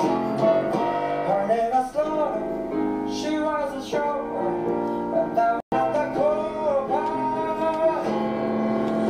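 Background music with guitar and piano carrying a melody line; it cuts out for an instant a little past halfway, then carries on.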